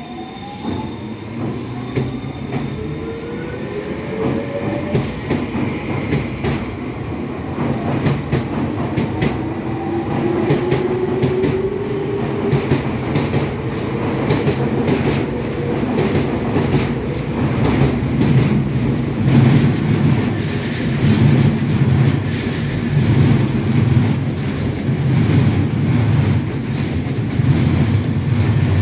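Senboku 7000 series electric train pulling away, its traction motor whine climbing steadily in pitch over the first dozen seconds. Under it, the rumble and clatter of the cars' wheels over the rail joints grows louder as they pass. Near the end a Nankai 6300 series train goes by on the next track.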